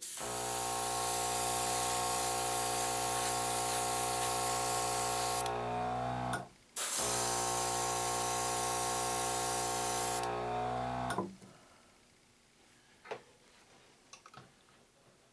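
Airbrush spraying paint, its small compressor motor humming under the hiss of air, in two passes of about five seconds with a short break between. Each time, the air hiss cuts off and the compressor motor winds down about a second later.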